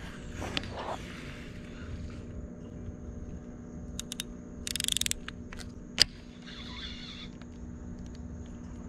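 Piscifun Alioz 300 baitcasting reel being worked on a cast: a couple of clicks, a quick rattle of clicks about five seconds in, and one sharp loud clack just after six seconds, over a faint steady hum.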